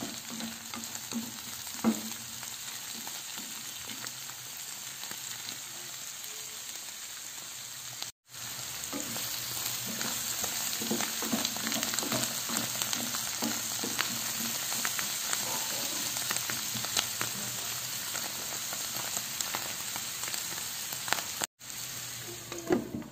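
Zucchini slices and mushrooms sautéing in butter in a nonstick frying pan over medium heat: a steady sizzle with scattered crackles, with a wooden spatula knocking and scraping against the pan as it stirs. The sizzle cuts out for an instant twice, and a glass lid knocks onto the pan near the end.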